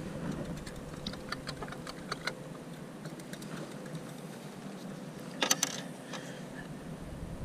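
Scattered small clicks and taps of painting gear being handled, such as brushes and the metal palette box, over a steady outdoor background hiss. A louder quick clatter of several clicks comes about five and a half seconds in.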